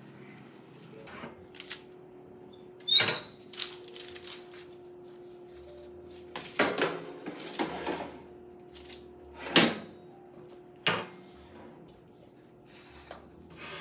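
Metal baking tray being slid into a countertop toaster oven and the oven door handled, giving about five sharp clanks and knocks, the first with a brief metallic ring, over a steady hum.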